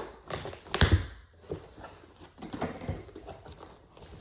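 Hands rummaging in an opened cardboard shipping box: irregular knocks and rustles of cardboard and packing material, the loudest knock about a second in.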